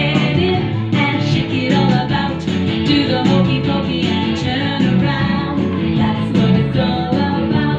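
A pop song with singing over guitar and a steady beat, played loud.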